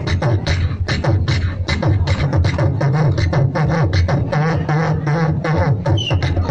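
A man beatboxing into a handheld microphone over a PA: a fast, dense run of clicks and snare-like hits over heavy, pulsing kick-drum bass, with wavering hummed tones woven in and a short whistle-like glide near the end.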